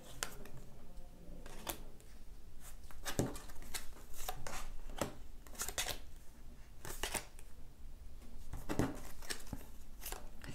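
Oracle cards being handled: drawn one at a time from a hand-held deck and laid on the table, giving short card slides and light taps, about eight of them spaced irregularly.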